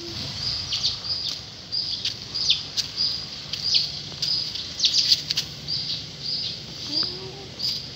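Small birds chirping steadily in short high notes, a few a second, with a cat's brief rising meow about seven seconds in.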